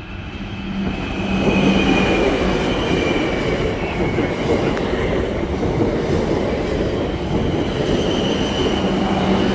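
Class 444 electric multiple unit passing close by, its wheels running on the rails with a steady rumble under a high whine. The sound swells over the first second or so and then stays loud.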